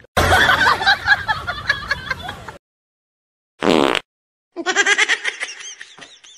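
Human laughter: a long stretch of giggling, a pause broken by one short loud sound, then snickering laughter in quick bursts.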